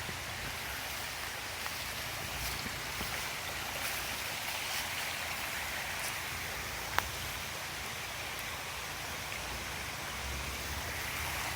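Steady rushing of a flooded creek running high. One sharp click about seven seconds in.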